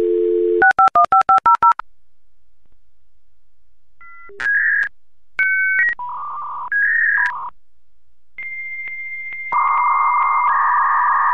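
Dial-up modem connecting to AOL: a dial tone, then about half a second in a quick run of seven touch-tone digits, a pause, then the modems' handshake of answering beeps and tones, ending in a steady high tone and a hissing band.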